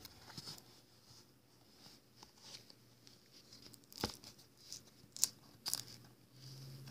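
Handling noise: soft rustling and crinkling of materials being moved about, with three sharp clicks in the second half.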